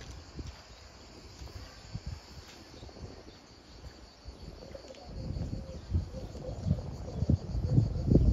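Insects chirring steadily in pine woods, a faint continuous high trill. Irregular low thumps and rumble sit under it and grow louder from about five seconds in.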